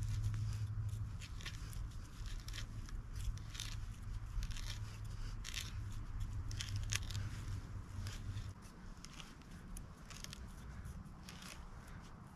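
A knife cutting and carving into a dead-wood pole: irregular short clicks and scraping cuts. Under it runs a low hum that stops about eight and a half seconds in.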